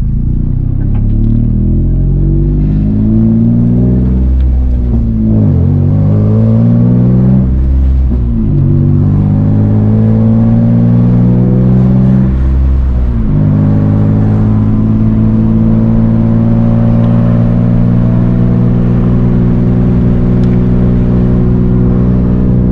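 Nissan 350Z's 3.5-litre V6 engine revving hard: the pitch climbs, falls sharply and climbs again three times, as with gear changes or lifting off, then holds at steady high revs.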